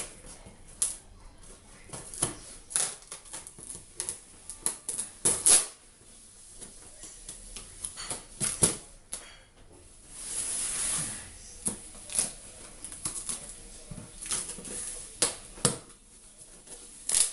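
A cardboard shipping box being opened by hand: a string of sharp clicks, knocks and rustles from the cardboard and its packing, with a noisy scrape lasting about a second roughly ten seconds in.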